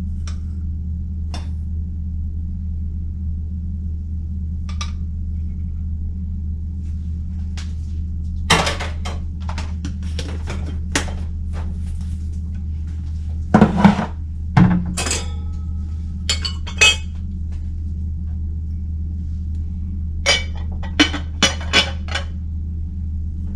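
Glass and metal clinking in scattered clusters as parts of a glass Pyrex stovetop percolator are handled, one knock leaving a short ring, over a steady low hum.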